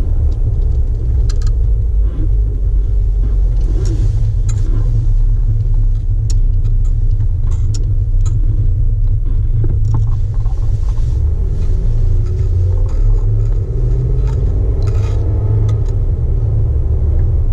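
Jeep Wrangler JK on the move: a steady low rumble of engine and road noise, with scattered light clicks and rattles.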